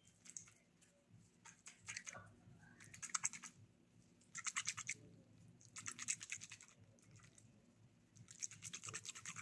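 Dark metal ring-shaped mold being rocked and twisted on a marble countertop, scraping and rattling against the stone in about five short bursts, to loosen the set gelatin from the pan's sides before unmolding.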